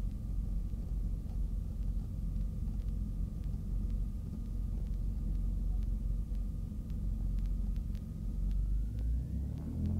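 Cessna 310Q's twin Continental six-cylinder engines running at low power while the plane lines up for takeoff, with a thin steady whine above the rumble. About nine seconds in, the throttles go forward and the engines' pitch starts to rise as takeoff power comes in.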